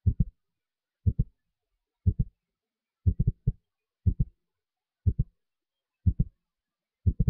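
A low thumping beat about once a second, each beat a quick double or triple thud, with silence between beats, like a heartbeat.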